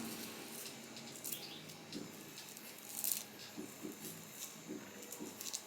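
Faint rustling and small clicks of hands handling hair-styling products on a wig, with a brief hiss about three seconds in.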